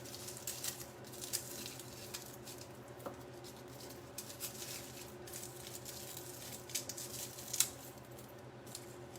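Faint, scattered small clicks, taps and rustles of hands handling things on a kitchen counter, the sharpest click about three quarters of the way through, over a steady low hum.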